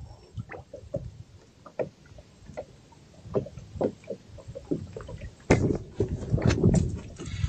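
Scattered light knocks and water sounds from a small boat, getting louder and busier about five and a half seconds in.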